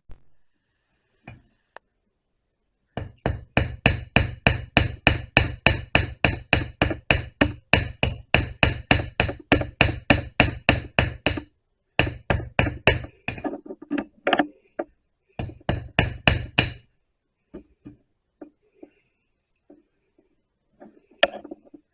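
Ball peen hammer tapping a rivet on a spliced .404 chainsaw chain, peening the head over to join the chain. A quick, steady run of light metal-on-metal taps, about four or five a second, goes on for several seconds, stops, then comes in two short bursts.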